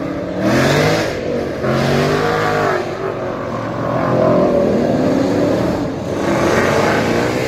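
V8 car engine accelerating hard past, its note climbing and dropping several times in a row.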